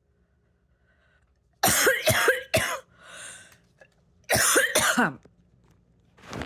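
A person's sudden, explosive bursts of breath and voice. There are three in quick succession, then a breath in, two more, and a shorter one near the end.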